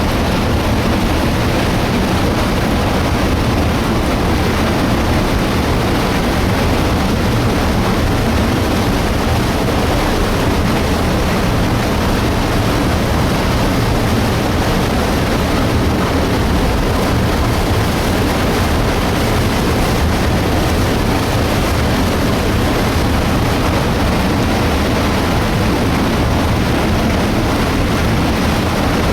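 Debris flow in the Illgraben torrent: mud, water and rock surging down the channel in a steady, loud rushing noise with a deep rumble underneath.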